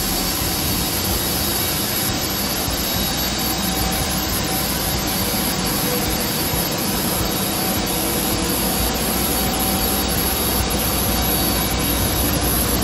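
Jet aircraft engines running with a steady, unbroken rush of noise and a faint high whine.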